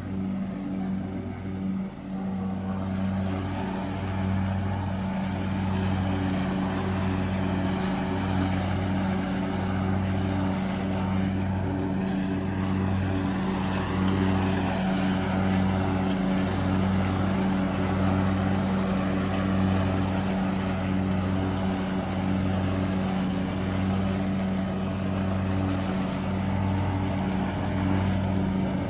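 John Deere LX172 lawn tractor's engine running steadily under load while mowing, with a slow, regular pulsing about once a second.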